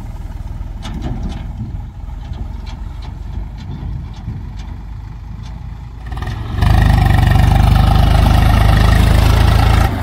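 Heavy diesel engine running steadily, with a few sharp clicks over it. About two-thirds of the way in it suddenly gets much louder and holds there, then drops back just before the end.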